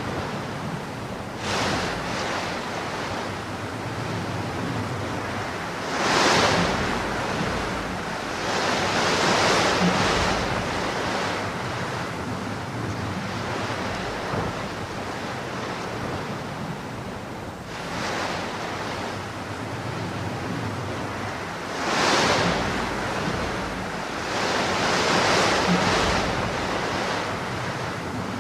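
Steady rush of heavy rain, with louder surges every few seconds like gusts of wind driving it. The same pattern of surges comes round again about every sixteen seconds.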